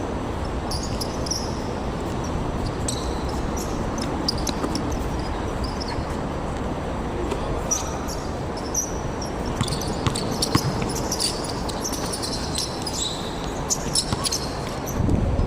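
Basketball game play: a basketball bouncing on the court, with short high sneaker squeaks and a few sharp knocks over steady background noise.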